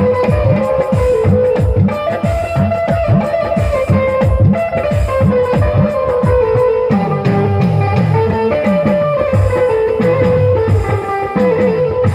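Bhojpuri-style instrumental music: a plucked, guitar-like melody over fast low drum strokes that each fall in pitch, about three a second.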